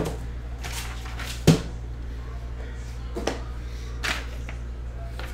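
Objects being rummaged through on a desk: a few sharp knocks and thuds, the loudest about a second and a half in, with scraping and rustling between them, over a steady low hum.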